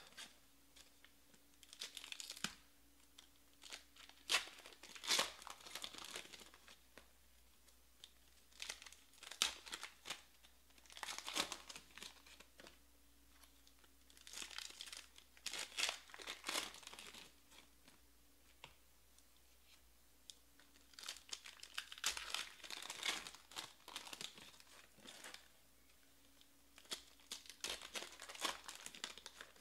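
Foil trading-card packs being torn open and crinkled by hand, in repeated short bursts of crackling tearing with quiet pauses between.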